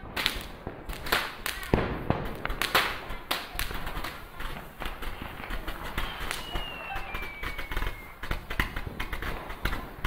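Fireworks display: a rapid, irregular series of bangs and crackles from bursting aerial shells. A thin falling whistle runs from about six to eight seconds in.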